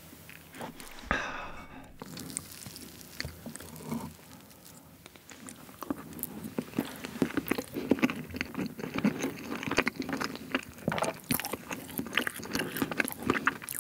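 Close-miked eating sounds: a man chewing a forkful of jam-filled Victoria sponge cake, with wet mouth clicks and smacks. The chewing is sparse at first and grows dense about halfway through.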